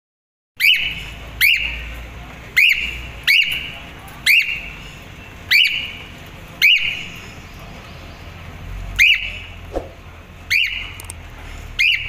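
Cockatiel calling over and over: about ten loud, sharp whistled calls, each a quick rising-and-falling note, coming roughly once a second with a longer pause in the middle.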